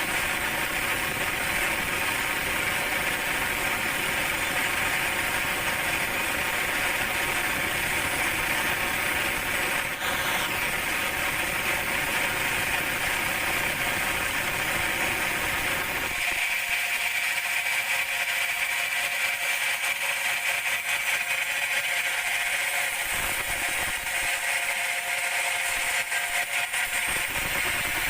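Large band sawmill running, a steady mechanical hum and rattle of the machine working on teak logs. About sixteen seconds in, the deep rumble drops out suddenly and the higher hum carries on; the rumble returns briefly twice before the end.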